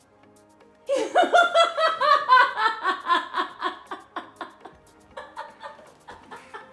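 A woman laughing and crying at once with emotion, starting about a second in with loud rapid bursts that taper off toward the end.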